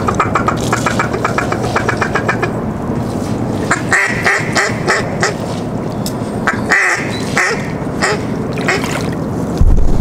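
Duck quacking: a fast, even run of short quacks over the first couple of seconds, then louder quacks about 4 and 7 seconds in.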